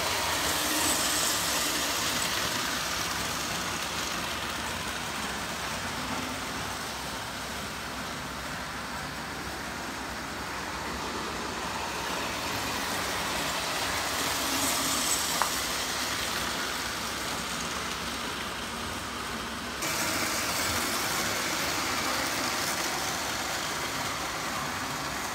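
Lionel O-gauge model train running on three-rail track: a steady whirring rumble of motor and wheels, stepping up suddenly in level about twenty seconds in.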